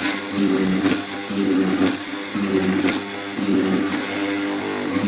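Hollow-chisel mortising machine running and plunging its chisel into a wooden chair part, the motor's note and loudness rising and falling with each stroke.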